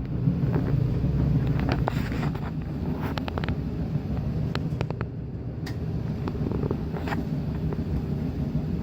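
1962 Norge washing machine running, a steady low hum with short irregular clicks over it.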